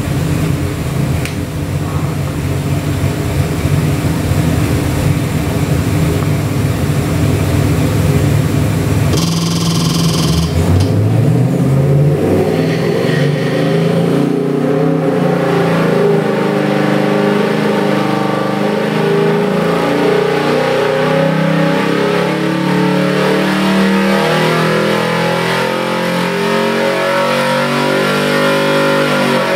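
Chevy 383 small-block stroker V8 with a Weiand tunnel-ram intake and two four-barrel carburetors, running on an engine dyno. It runs steadily at low revs, revs up about ten seconds in, then climbs steadily in pitch under the dyno's load in a power pull from about 3,300 to about 5,800 rpm, dropping off right at the end.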